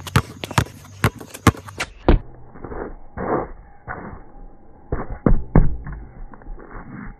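Two basketballs being dribbled on concrete: sharp, rapid bounces at about three a second, turning duller and more muffled after about two seconds, with a quick cluster of bounces near the middle.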